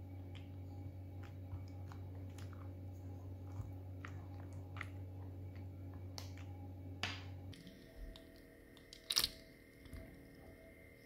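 Faint small clicks and taps of a metal spoon pressing on set agar jelly in a mould, over a steady low hum. The hum stops about seven seconds in, and a single sharper click follows.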